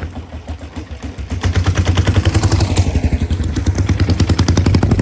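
1934 Harley-Davidson alcohol speedway racer's single-cylinder engine firing off a push start and running with rapid exhaust pops. It gets louder about a second and a half in as the bike pulls away under power.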